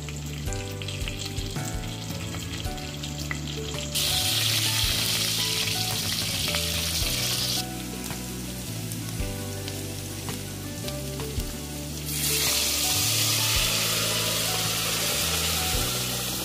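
Sliced red onions frying in hot vegetable oil in a stainless steel pot: a steady sizzle that grows louder from about four seconds in to about halfway, and again from about twelve seconds in. Background music with low notes plays underneath.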